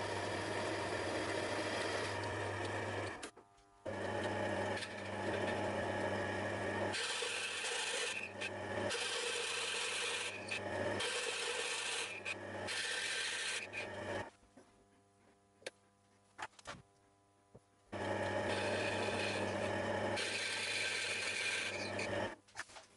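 Metal lathe taking a cut on a spinning bronze worm-wheel blank: a steady rasping cutting noise over the hum of the lathe motor. It drops out briefly about three seconds in and for several seconds in the middle.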